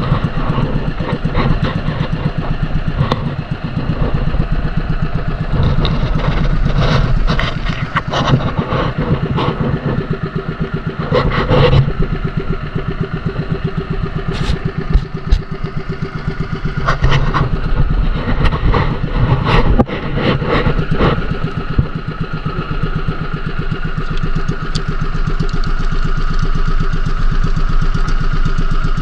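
Small engine of a motorized outrigger boat (bangka) running steadily under way, with brief sharp knocks now and then.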